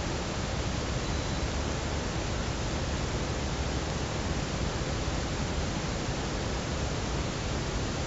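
Steady hiss with a low rumble underneath, even and unbroken, with no breathing rhythm to pick out.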